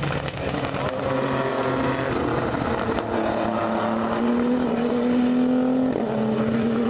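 Two GT race cars' engines running hard at speed on a wet track, pulling away from the listener, their pitch rising slowly with a short break about six seconds in.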